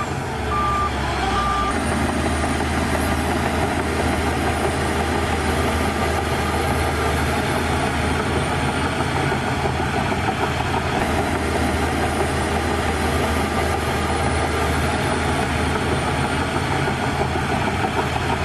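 Bulldozer's diesel engine running steadily, its note shifting slightly about two seconds in, with two beeps of its reversing alarm in the first two seconds.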